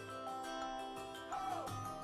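Background music of held instrumental notes with a bending, sliding melody line.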